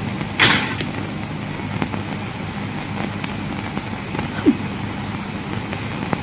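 Steady hiss and low hum of an old film soundtrack. A short noisy burst comes about half a second in, and a brief rising squeak about four and a half seconds in.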